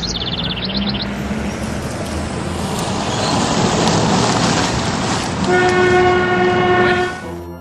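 A train passing: a rushing noise builds up, then a steady train-horn blast is held for about a second and a half near the end.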